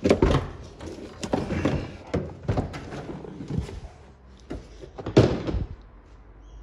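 A series of knocks and thuds as a car's rear seat base is handled and carried out past the door opening. The loudest thuds come right at the start and about five seconds in, when it goes down on the concrete floor.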